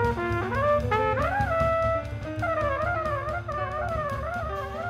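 Jazz quartet playing, led by a trumpet: quick rising runs, a held note about two seconds in, then a line that dips and rises again and again, over drums and bass.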